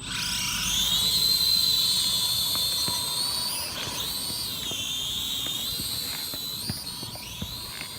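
Small quadcopter drone's electric motors whining. The whine starts suddenly, climbs in pitch over the first second as the drone lifts off, then holds with small wavers while it flies.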